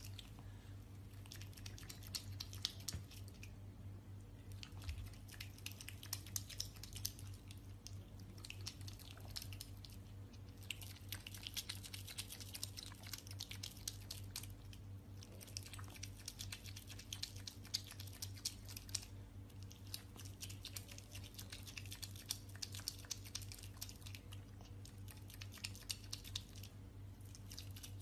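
An otter chewing food, a rapid run of small wet crunches and smacks that comes in spells with short pauses between them, over a faint steady hum.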